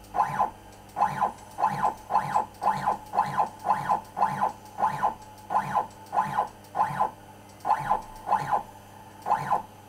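X-axis stepper motor of a DIY CNC router turning the lead screw in short jog moves, a brief whine about twice a second, some in close pairs. The axis is being stepped back and forth against a dial indicator to measure backlash.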